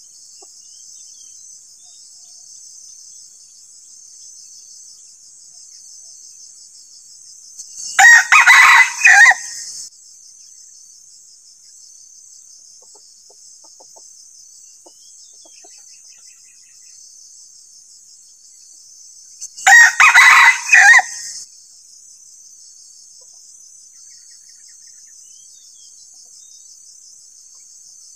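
A young decoy junglefowl rooster (ayam pikat) crowing twice, about twelve seconds apart. Each crow lasts under two seconds and comes in a few broken syllables. A steady high insect trill runs underneath.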